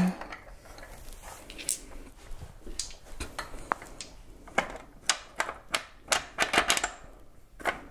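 Metal parts of a headset press clicking and clinking against each other and the bottom bracket shell as they are fitted together: a run of light, irregular taps, thickest in the second half.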